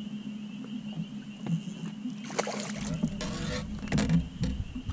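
A steady hum with a thin high whine from the boat. From about halfway, a cluster of splashes and knocks as a pike is played at the side of the boat on a spinning rod.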